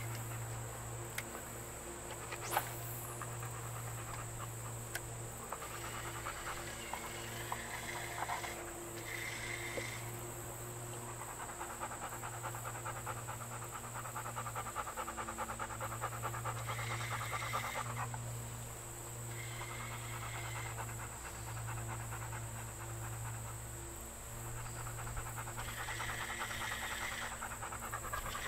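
A small electric motor humming in spurts, cutting out and starting again every few seconds, with a fast fine whir rising and falling over it.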